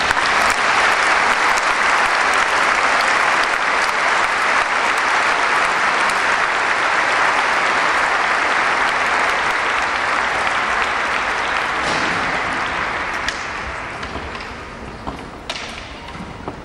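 Audience applause, loud and steady, then dying away after about twelve seconds.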